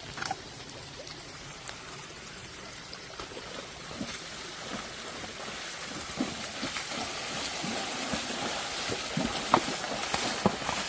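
A horse's hooves splashing through a shallow creek: a rush of water that grows louder about halfway through as the horse wades in, with sharp splashes from single hoof strikes toward the end.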